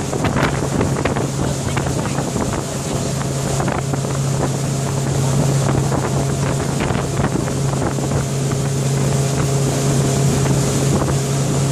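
Small boat's motor running steadily with a low drone, with wind buffeting the microphone.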